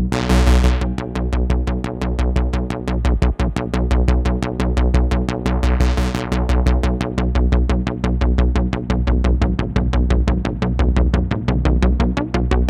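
Korg ARP 2600 FS analog synthesizer playing a sequenced electronic patch: rapid repeating notes over a pulsing bass beat, with a short burst of bright noise at the start and again about six seconds in.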